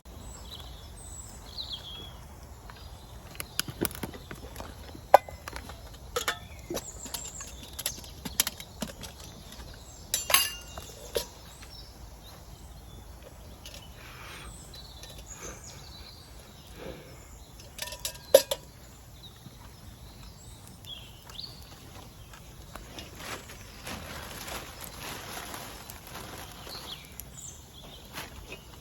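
Woodland outdoor ambience with small bird chirps, broken by scattered sharp knocks and cracks, loudest about five, ten and eighteen seconds in.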